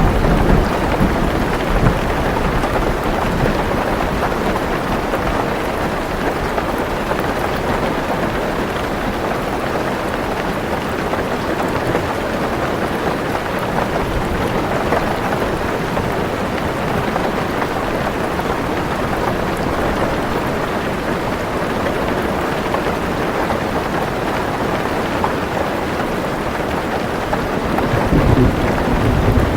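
Heavy rain falling steadily on a car roof, with a low thunder rumble at the start and another near the end.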